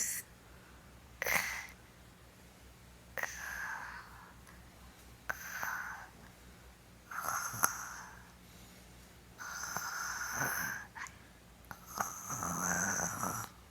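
A young child imitating a snore: a run of about seven breathy snorting breaths, a second or two apart, the last two longer and drawn out.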